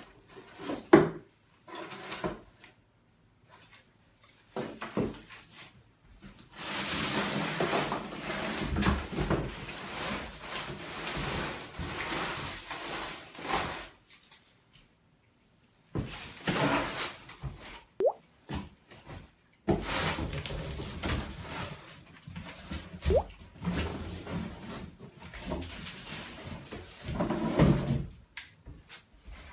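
Rustling and scraping of a National Tree Company Carolina Pine artificial Christmas tree's plastic branch sections being handled and lifted out of a cardboard box. The needles brush against each other and against the cardboard in long bouts, with a few sharp knocks, and there are short silent breaks between the bouts.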